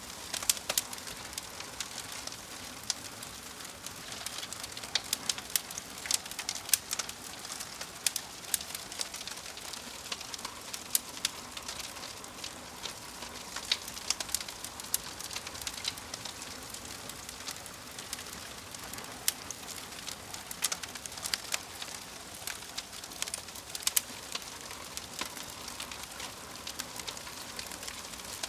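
Wood fire burning in a fireplace: irregular sharp crackles and pops over a steady hiss.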